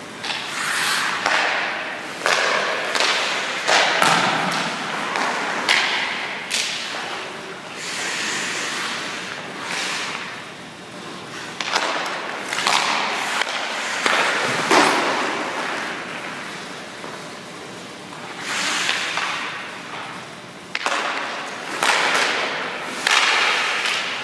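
Hockey skate blades scraping and carving on ice in repeated hissing strokes, each a second or two long and starting suddenly. Sudden knocks and thuds come in between.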